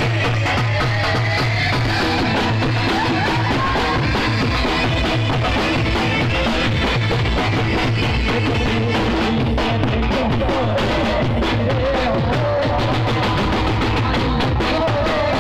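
Loud live band music: a keyboard plays a wavering melody over a steady, driving beat on a drum set of many toms and bass drums.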